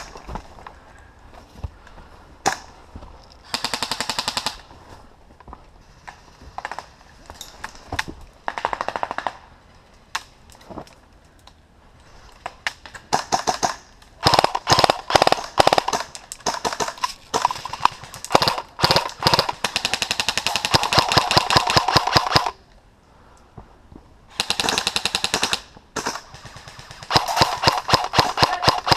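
Airsoft rifles firing BBs in rapid full-auto bursts: several bursts of quick, even clicks, some short and one running for several seconds in the middle, with quieter pauses between.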